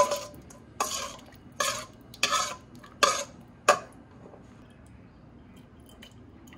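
A metal spoon stirring a liquid marinade in a stainless steel mixing bowl, scraping against the bowl in about six strokes over the first four seconds.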